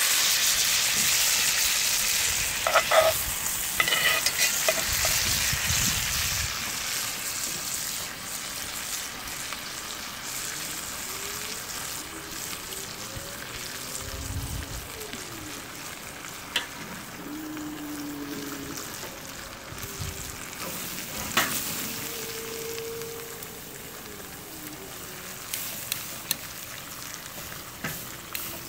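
T-bone steaks sizzling in melted butter in a cast-iron skillet over a charcoal grill: a steady frying hiss that is loudest at first and slowly fades. A few sharp clicks break in, a couple about three to four seconds in and more later.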